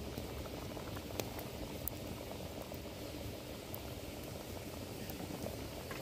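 Thick garlic and tamarind gravy (kuzhambu) bubbling at a steady boil in a pot, with a few faint pops.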